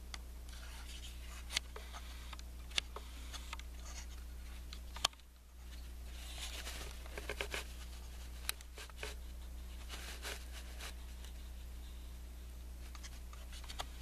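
A steady low hum with scattered sharp clicks, taps and short scratchy rustles close to the microphone. The hum drops out briefly about five seconds in, and the rustles cluster a little after that.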